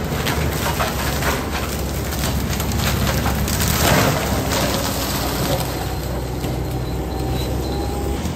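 New Holland compact track loader's diesel engine running under load while its 60-inch IronCraft disc mulcher grinds through brush and small trees, with dense crackling and splintering of wood. The grinding is loudest about halfway through as chips spray out.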